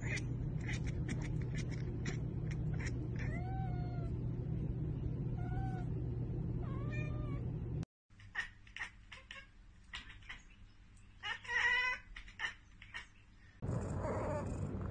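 Domestic cats chattering: quick runs of clicking with short, chirping calls that rise and fall in pitch, including one longer call in the second half. This is the chatter a cat makes at a bird or insect it can't get to. A steady low hum runs under the first half, and the sound cuts out sharply a little past the middle.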